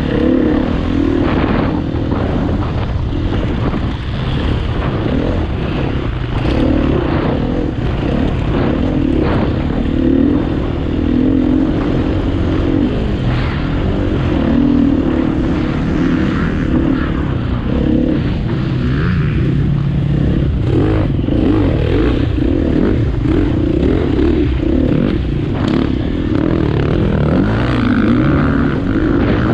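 KTM EXC 250 F enduro bike's single-cylinder four-stroke engine running under load, its pitch rising and falling with the throttle, with scattered knocks and clatter from the bike over rough ground.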